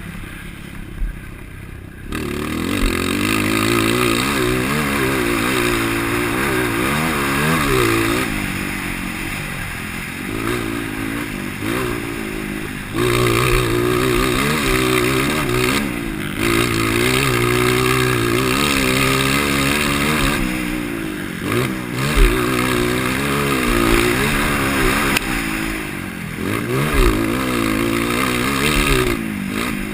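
IMS 230 dirt bike engine with a DORE header and exhaust tip, revving up and down as it is ridden hard, the throttle opening and rolling off again and again, with short clattering knocks.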